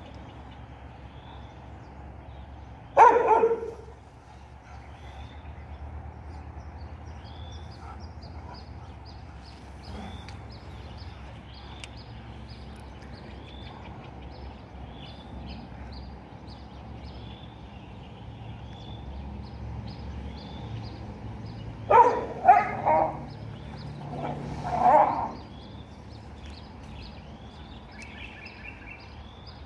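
Dog barking: a single bark a few seconds in, then a quick run of three or four barks about three-quarters of the way through. A faint high chirp repeats about once a second in the background.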